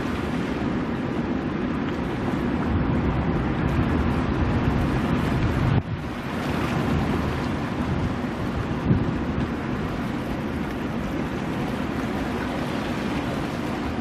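Ocean waves breaking over offshore rocks: a steady wash of surf, with wind rumbling on the microphone. The level dips briefly about six seconds in.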